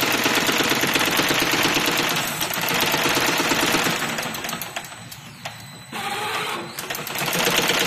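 High-speed brush-making machine running with a fast, dense mechanical clatter of many strokes a second. It goes quieter for about two seconds just past the middle, then the clatter picks up again.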